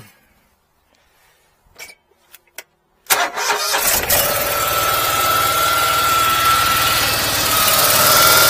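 Briggs & Stratton Vanguard 35 HP V-twin engine of a high-pressure drain jetter starting up about three seconds in and settling into a steady run, on its first start after an oil change. A few light clicks come before it.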